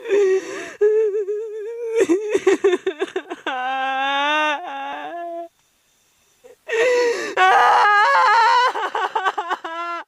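A high-pitched voice crying: wavering wails broken by choppy, gasping sobs. It stops for about a second midway, then the wailing and sobbing start again.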